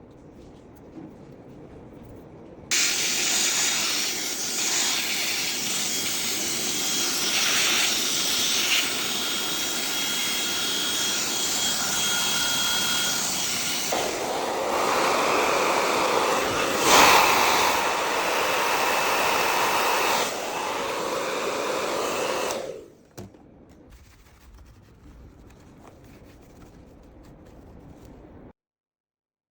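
A small electric air-cleaning tool running with a loud rush of air and a faint high whistle, switched on about three seconds in and cut off abruptly after about twenty seconds; its sound shifts lower and fuller about halfway through.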